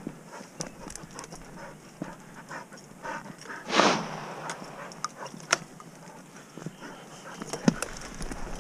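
Footsteps crunching over loose stones and through dry scrub, with panting, probably from the hunter or a dog close by. A louder rush of noise comes about four seconds in.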